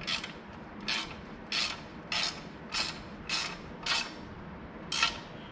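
Hand ratchet with a 7/16-inch socket tightening a nut: a run of short clicking back-strokes, a little under two a second, about eight in all, the last after a brief pause.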